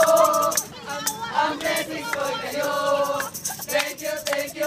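A crowd of people cheering and shouting together, with some long, held calls that sound almost sung.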